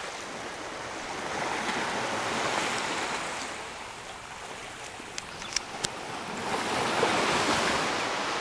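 Surf washing onto a sandy beach, a steady hiss that swells, eases off and swells again. Three sharp clicks come a little after halfway.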